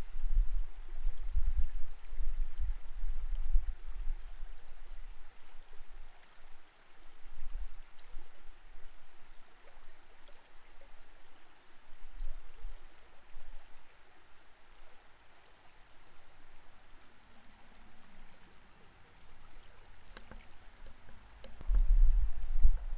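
Creek water heard through a submerged camera: a muffled, even wash of current with low rumbling surges, heaviest at first and again near the end, and a few faint ticks a little before the end.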